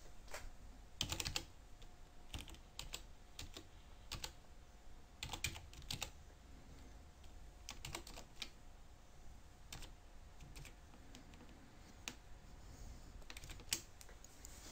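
Computer keyboard being typed on: faint, irregular keystrokes, single taps and short clusters with pauses between them.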